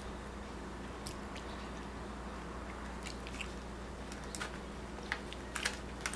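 Someone chewing a mouthful of cherry pie, with scattered short wet clicks and smacks that come more often in the last couple of seconds, over a low steady hum.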